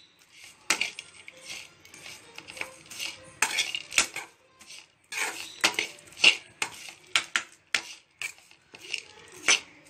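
A metal spatula scraping and clinking against a stainless steel kadai as dry, crunchy fried noodles are tossed and mixed, in irregular strokes several times a second.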